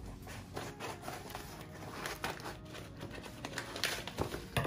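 Scissors cutting through a yellow padded paper mailer: a series of irregular snips with the paper crinkling.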